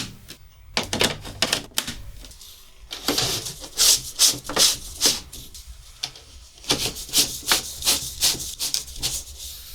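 Plastic air-conditioner accessories, ducts and adapter rings, being handled: a run of rubbing scrapes and light clicks, in two busy stretches.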